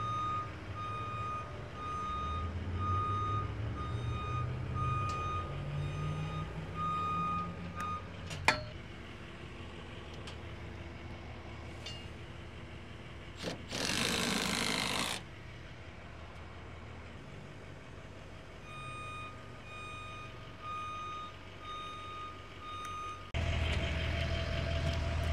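Back-up alarm on a work vehicle beeping steadily at about one and a half beeps a second, over a running engine whose pitch rises and falls. About fourteen seconds in there is a short hiss; the beeping comes back later, and the engine grows louder near the end.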